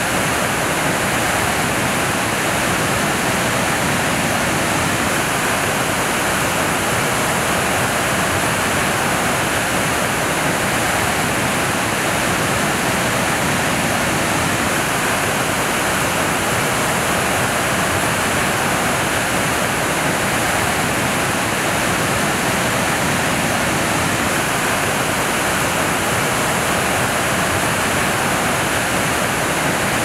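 Murchison Falls on the Victoria Nile: white water churning over rocks in a steady, unbroken rush.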